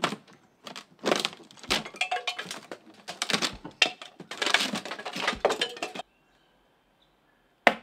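Old cedar shingles being pried and pulled off a wall, with wood cracking and scraping in quick bursts. It stops abruptly about six seconds in, and a single sharp knock comes near the end.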